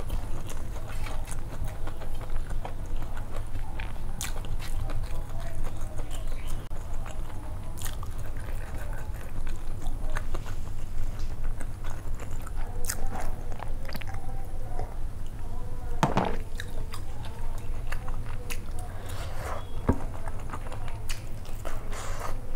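Close-miked chewing and mouth sounds of a person eating chicken curry and rice by hand, with many small scattered clicks and a louder one about two-thirds of the way through, over a steady low hum.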